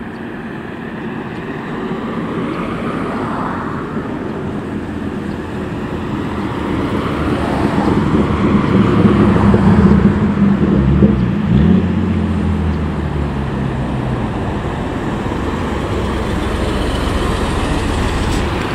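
Road traffic: a heavy vehicle's engine passes close by, swelling to its loudest about nine to twelve seconds in, over a steady traffic rumble.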